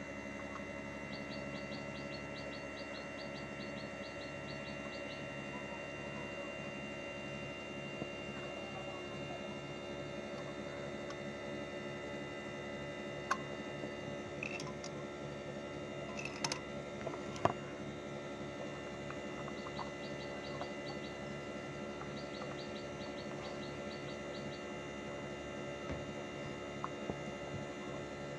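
Split air conditioner outdoor unit running with a steady, even hum made of several fixed tones. There are faint high chirping trills near the start and again later, and a few light clicks in the middle.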